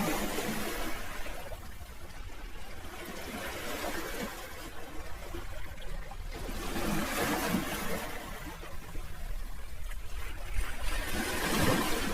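Sea waves washing onto the shore, the water noise swelling and easing, with surges at the start, about seven seconds in and near the end.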